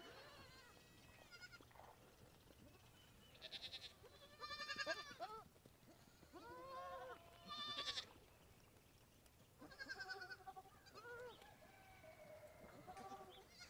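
Goats bleating on and off: several wavering calls that rise and fall in pitch, spread over the stretch with quiet gaps between.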